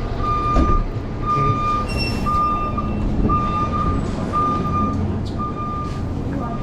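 A vehicle's reversing alarm beeping, one steady high tone repeated about once a second, over a low engine rumble.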